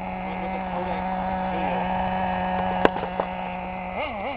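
Team Associated RC10GT's small .15 nitro engine running at a steady high pitch, with one sharp knock about three seconds in; near the end the pitch wavers up and down as the throttle is worked.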